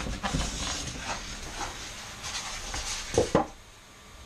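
Cardboard packaging being handled: rustling and scraping of a box and its insert, then two sharp knocks close together about three seconds in.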